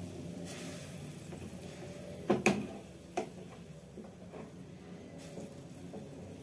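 Spatula knocking against a cooking pan of Maggi noodles simmering in water, sharp knocks a little past two seconds in and again about a second later, then fainter taps, over a steady low hum.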